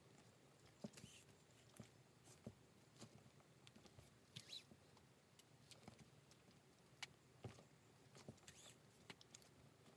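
Faint, irregular small clicks and scratches of leather being hand-stitched: needles pushed through the stitching holes of a leather strap and thread drawn through, with a brief scratchy rasp about halfway through.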